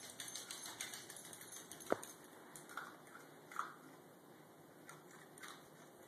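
Faint small clicks and ticks from a dachshund puppy carrying her food across the floor and eating it, with one sharper click about two seconds in.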